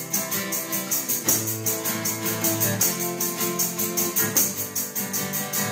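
Acoustic guitar strummed with a tambourine shaken and struck in a quick, regular beat: an instrumental stretch of a sing-along song.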